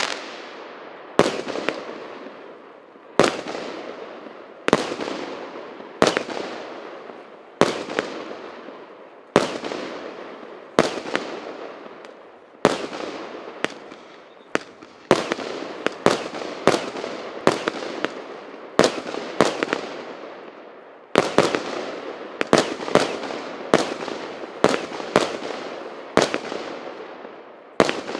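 A multi-shot consumer fireworks cake firing shot after shot: each shot is a sharp bang followed by a fading hiss and crackle. The shots come about one every second and a half, then faster and closer together from about two-thirds of the way in.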